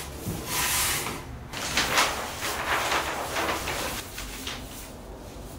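The cutting head of a long rail trimmer sliding along its track through a large banner sheet, with repeated swishing and scraping of the sheet as it is cut and handled.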